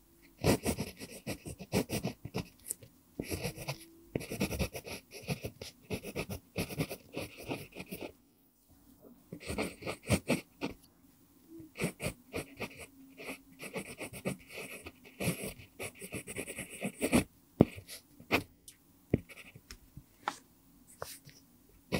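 Pentel PG5 mechanical pencil writing cursive on lined paper: the lead scratches in many short strokes, with a brief pause about eight seconds in.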